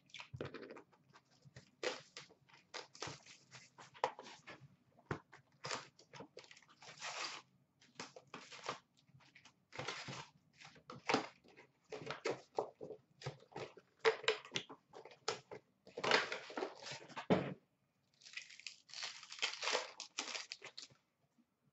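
Cardboard hockey-card box being opened and its packs pulled out and torn open: irregular bursts of cardboard scraping, wrapper crinkling and tearing, with short pauses between them.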